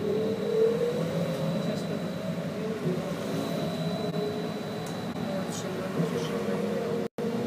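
BKM 321 trolleybus traction motor whining as heard from inside the cabin. Its pitch rises over the first two or three seconds as the trolleybus accelerates away from a stop, then holds steady. A faint high steady tone runs underneath, and the sound cuts out for a moment near the end.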